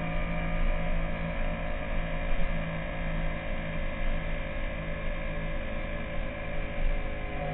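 Yamaha YZF-R1 inline-four engine running at a steady cruising speed, a held, even drone. Its note shifts briefly near the end.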